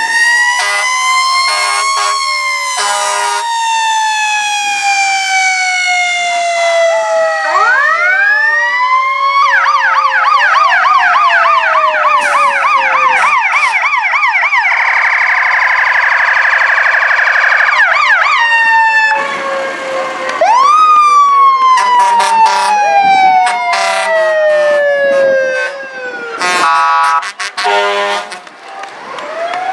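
Sirens of several passing fire trucks and an ambulance sounding at once: overlapping slow wails and a fast yelp, broken by short horn blasts.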